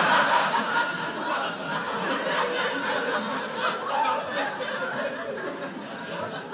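Live stand-up audience laughing after a punchline, loudest at the start and slowly dying away.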